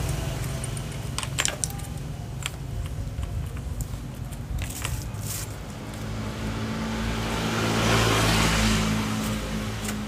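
Small metal clinks and rattles of a hex key and bolts being worked during assembly of a brush cutter, a few sharp clicks in the first half. Under them a low engine hum runs, swelling to its loudest about eight seconds in.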